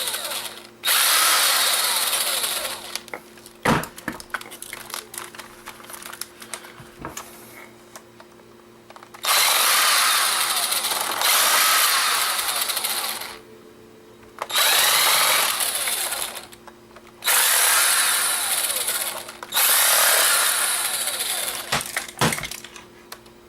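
Small power screwdriver running in five bursts of about two to four seconds each, backing out the tiny screws of a camera casing. Light clicks of handling come between the bursts, with a long spell of them after the first.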